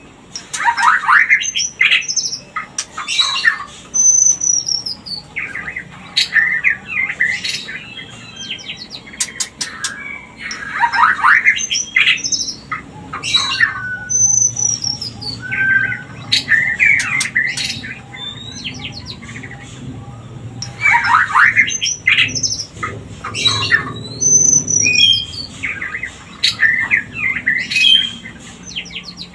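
White-rumped shamas calling: harsh, rapid chattering phrases mixed with short whistles that sweep downward, coming in loud bursts every few seconds with brief pauses between.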